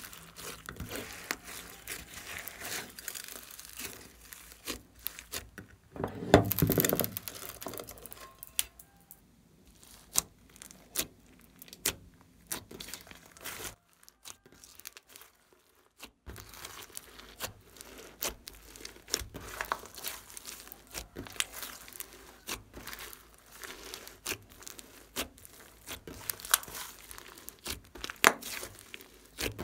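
Hands squeezing, pressing and stretching glossy slime with glitter and beads mixed in: a dense run of sticky clicks, pops and crackles. There is a louder, longer squelch about six seconds in, and a gap of about two seconds around the middle.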